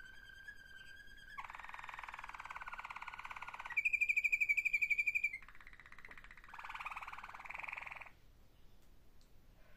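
Malinois (Waterslager) canary singing a run of song tours: a held whistle, then a rolling buzzy tour, then a loud rapid trill about four seconds in, and a further rolling phrase before it falls quiet near the end.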